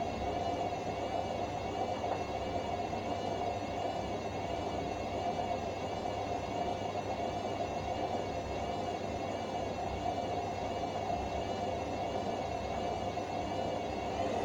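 Hotpoint WMF760 washing machine turning its drum at a steady speed in the spin program: a droning hum with a whine that wavers up and down about once a second. The drum bearings are worn.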